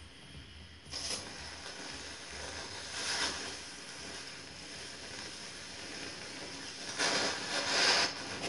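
Oxy-fuel cutting torch hissing steadily while cutting through steel welds, with louder surges of cutting blast about a second in, around three seconds, and a longer one near the end.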